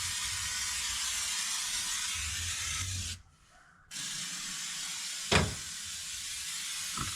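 Aerosol can of rubberized undercoating sealant spraying with a steady hiss. It stops for under a second partway through, then sprays again. A sharp knock sounds about two-thirds of the way in, and a fainter one comes near the end.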